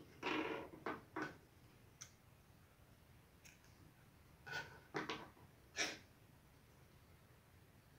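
Soft, short rustles of polypropylene crochet thread and fingers handling a small crocheted flower while fastening off the yarn end: a few near the start and three more past the middle.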